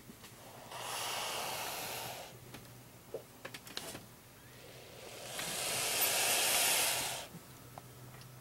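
Motley boa constrictor hissing, two long, loud hisses a few seconds apart, the second the longer: a defensive warning.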